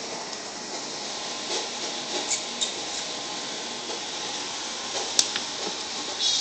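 Handheld camera handling noise: faint rustling over a steady hiss, with one sharp click about five seconds in.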